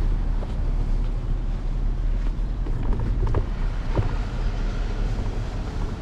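Steady low rumble of wind and road noise from an Apollo Explore electric scooter riding over pavement, picked up by a handlebar-mounted GoPro, with a couple of faint knocks about three and four seconds in.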